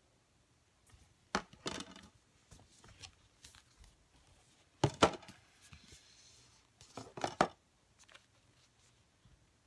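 Album packaging being handled: a few sharp knocks and taps as the CD, paper inserts and the hardcover album case are picked up and set down, with a brief papery rustle. The loudest knocks come about five seconds in and again about two seconds later.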